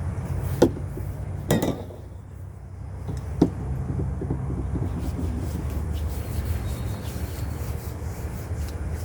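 CO2-powered Glock 19 BB pistol firing three sharp pops, about half a second in, at about a second and a half, and near three and a half seconds. Under them runs a steady low rumble on the microphone.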